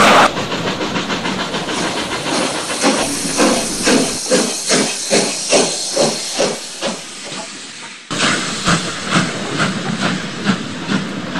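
Steam locomotive chuffing with hissing steam, from a sound-equipped HO model steam locomotive. It runs in an even beat of about two to three chuffs a second and fades out about eight seconds in. After an abrupt cut it starts again.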